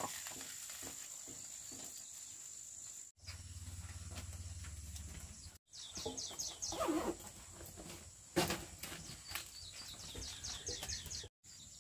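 Rural ambience with an animal's repeated short, high chirps, each falling in pitch, several a second, in the second half. The sound breaks off abruptly three times.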